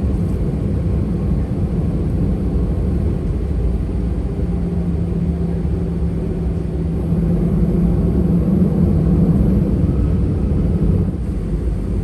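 Cabin noise inside an Airbus A319 jet airliner: a steady low rumble. Partway through, a hum swells and grows louder, then falls away again near the end.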